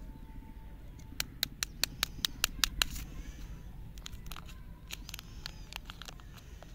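Plastic lollipop wrapper crackling as it is peeled open by hand: a quick run of sharp crackles about a second in, then softer crinkling near the end, over a low steady rumble.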